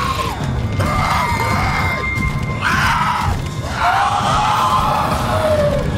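Horror film soundtrack: a tense score with a low rumble, over which come shrill screams that rise and fall in pitch, several in a row, and a held high tone about a second and a half in.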